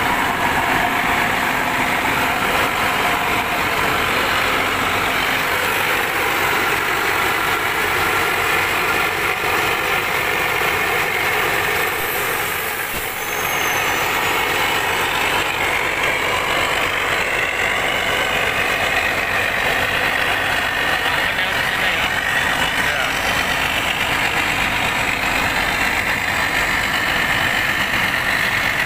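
Rear-mounted diesel engine of an intercity coach idling steadily with its engine bay open, belts and pulleys turning.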